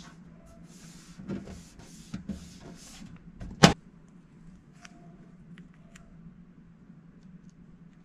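Sticker being handled and its paper backing peeled off, a rustling crinkle, with a sharp click about three and a half seconds in and a few light taps as it is pressed onto a metal toolbox drawer. A low steady hum runs underneath.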